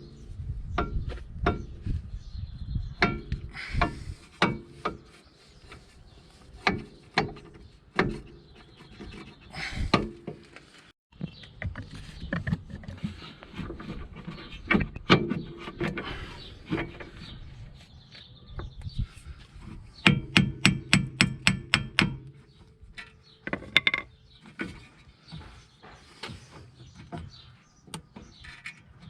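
Metal wheel-hub parts and hand tools clinking and knocking as the freshly greased front wheel bearing is fitted on a Mercedes CLK W208 hub, with a quick run of about a dozen light, ringing hammer taps on metal about two-thirds of the way through.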